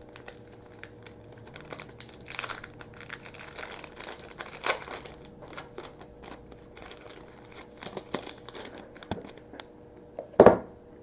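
Baseball card pack wrapper crinkling and tearing open, with the cards being handled, in a run of small crackles and clicks. A short, louder bump comes near the end.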